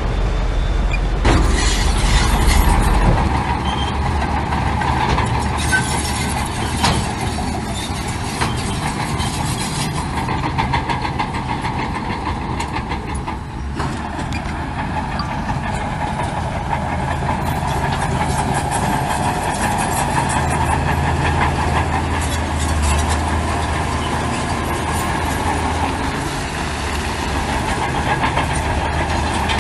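Bulldozer's diesel engine running under load, with steel tracks clanking and rattling steadily. The deepest engine rumble is heavier in the first three seconds, then eases.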